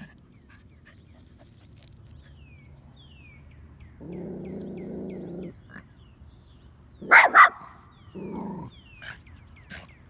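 A dog sneezing twice in quick succession, two loud sharp bursts about a second and a half apart from the end, with a low drawn-out pitched noise a few seconds before and a shorter one just after. Faint high chirps repeat in the background.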